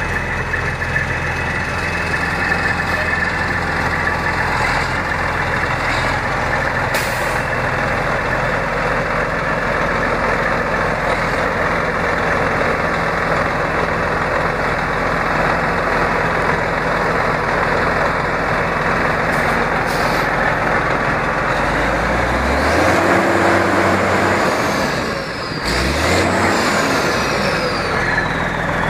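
A 1999 International 9900 semi tractor's diesel engine idling steadily, then revved up twice near the end, a high whistle falling away after each rev.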